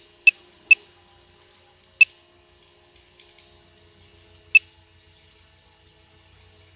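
Water dripping from a leak into pooled water: about five short, sharp plinks at irregular intervals, over a faint steady hum.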